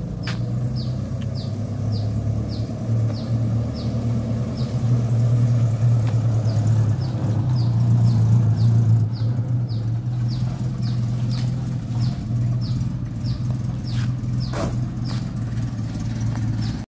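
Suzuki Katana's small four-cylinder petrol engine running steadily at low revs. Over it is a short, high chirp, repeated about three times a second, which pauses for a moment about five seconds in.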